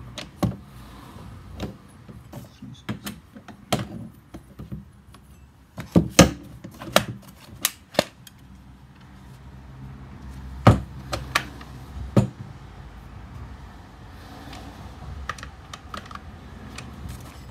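Irregular clicks, taps and knocks of a Stihl HT-KM pole pruner's metal shaft and plastic gear head being handled and fitted together on a wooden workbench, with a few sharper knocks about six and eleven seconds in.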